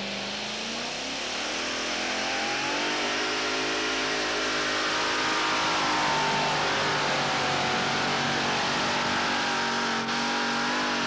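Supercharged V8 of a two-wheel-drive funny-car pulling truck running at full throttle under the load of a pulling sled. Its pitch climbs over the first few seconds, holds, then rises again near the end.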